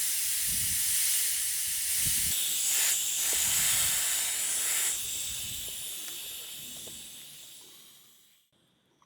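Air hissing out of a tire through the open hole where the valve stem has been pulled out. The hiss is steady for about five seconds, then fades away to nothing as the tire goes flat.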